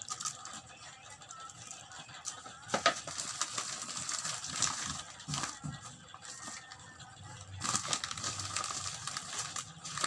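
Packaging crinkling and rustling as it is handled and unwrapped, with scattered sharp clicks and taps.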